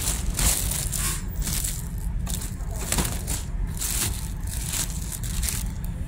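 Thin plastic wrapping crinkling and rustling in irregular bursts as it is handled and pulled off a new printer.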